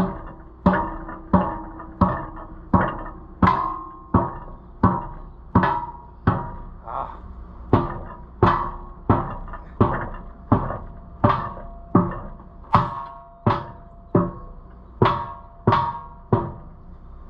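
Hammer blows beating a tractor tire onto its wheel rim, struck in a steady rhythm of about one blow every 0.7 s, each with a brief ring.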